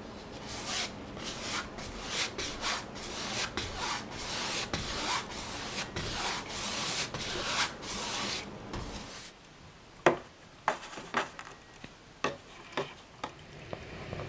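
Flat paintbrush scrubbing black paint across a canvas in quick, repeated strokes. About nine seconds in this gives way to quieter, sharp scrapes and taps of a painting knife edge drawing lines on the canvas.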